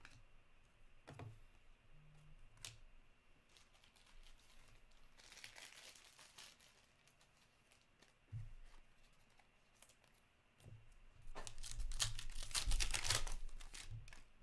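Foil trading-card pack wrapper being torn open and crinkled by hand, a dense crackling that is loudest over the last three seconds. A softer rustle comes about midway.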